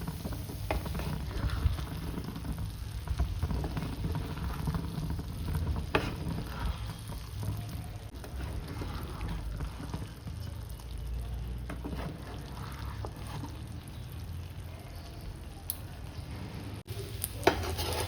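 Kitchen cooking sounds: light frying and stirring in a pan over a steady low hum, with a few sharp utensil clicks.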